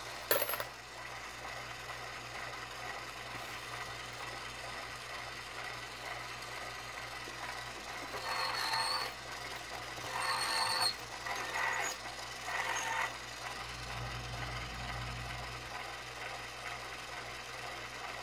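Lyman case prep center's small electric motor running with a steady hum, while .223 brass cases are pressed briefly onto its spinning chamfer and deburr tools: four short scraping cuts a little past the middle as the case mouths are chamfered and deburred. A sharp click right at the start.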